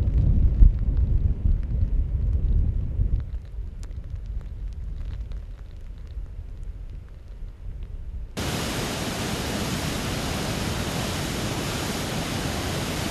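Low rumble of wind buffeting the microphone, fading after about three seconds. About eight seconds in, an abrupt cut brings a steady, even hiss of water.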